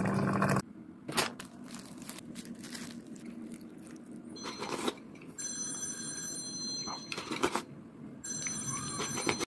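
Hot water pouring from a pot into a teapot for about half a second at the start, then a few clicks. A ringing tone like a telephone bell sounds twice in the second half, each time for about a second and a half.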